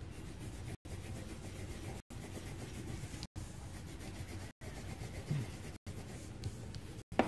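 Pencil shading on paper: a steady rubbing scratch of the lead over the sheet, cut by brief silent gaps about every second and a quarter.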